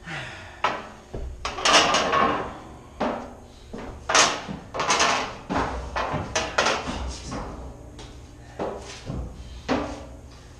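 Metal 16-inch powder cans clanking and thumping as they are shifted and climbed on: a string of about a dozen irregular knocks and clanks, each with a short ring.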